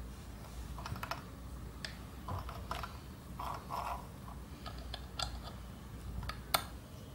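Light clicks, taps and rustles of hands handling a small metal sewing-machine bobbin and thread, with one sharper click about six and a half seconds in as the bobbin is pushed onto the bobbin-winder spindle.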